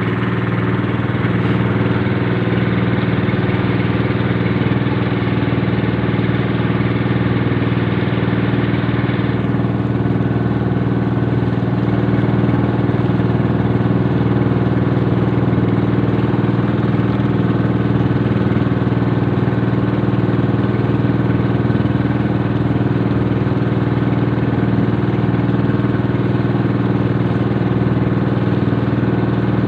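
The engine of a motorized outrigger boat running steadily while under way.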